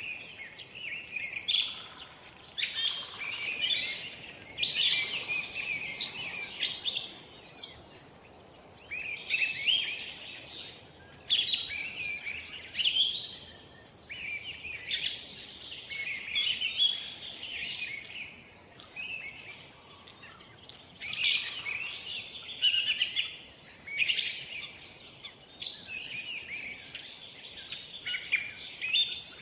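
Songbirds singing and chirping: quick, high phrases of a second or two, one after another, over a faint steady background hiss.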